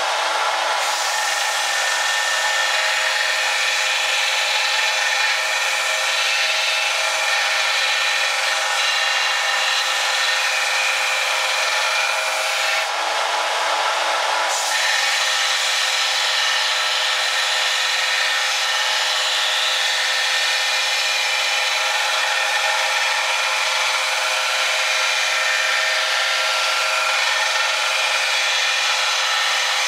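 A power tool grinding steel steadily, shaving down the sides of the threads on a knife's rat-tail tang. It eases off briefly about halfway through, then carries on.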